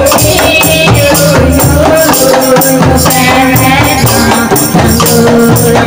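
Qasidah music: a group beats rebana frame drums with jingles over deep drum beats, in a steady rhythm under a held melody line.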